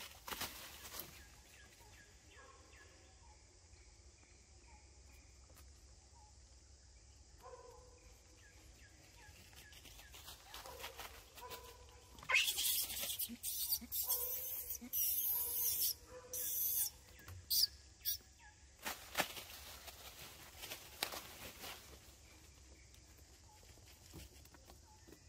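Rustling and crunching of leaves and branches in a series of loud bursts from about halfway through, with a few shorter rustles near the start and just after, over a quiet forest background.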